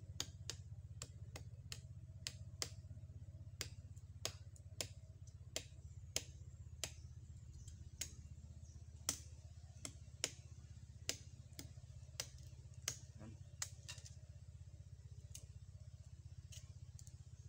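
Bolo knife chopping into a palm trunk: sharp, irregular strikes about one or two a second that stop near the end. Under them, the steady low drone of a passing motorboat's engine.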